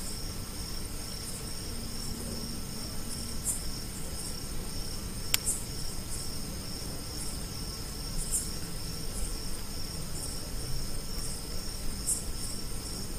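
Insects, like crickets, trilling steadily at a high pitch, with short chirps every second or so. One sharp click comes about five seconds in.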